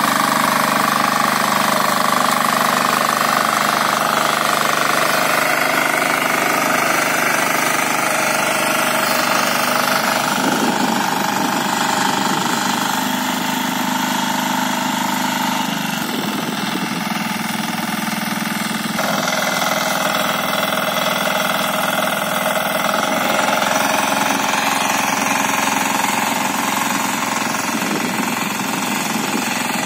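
Kirloskar 8 hp diesel power weeder running steadily under load, its rotary tines tilling the soil. The tone shifts a few times.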